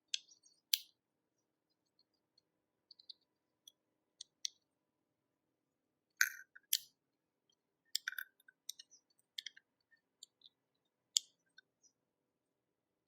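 Irregular sharp clicks and taps of a power bank's hard plastic casing and parts being handled as it is taken apart. They come in small bunches with short pauses between.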